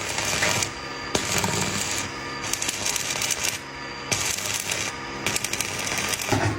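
A hand tool scraping back and forth in slow, even strokes, about one every second and a half.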